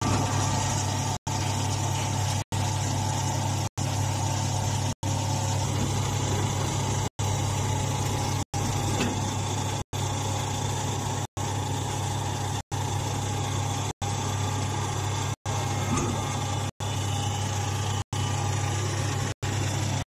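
A vertical straw baler's power unit running steadily with a low hum, interrupted by brief silent gaps about every second and a quarter.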